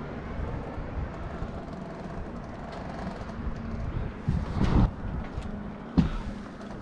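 A steady low mechanical hum, like an idling engine, with a few sharp knocks and thumps about four and a half and six seconds in.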